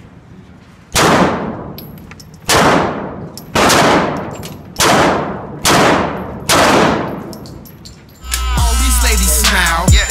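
Handgun fired six times at a shooting range, roughly a shot a second, each report echoing and dying away. About eight seconds in, hip-hop music with a heavy bass line comes in.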